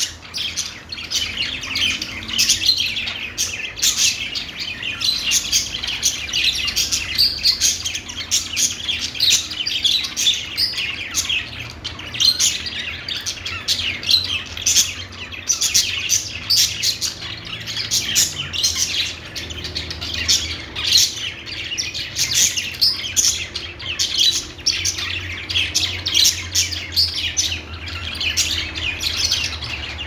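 A flock of budgerigars singing and chattering together: an unbroken stream of quick, overlapping high chirps and warbles.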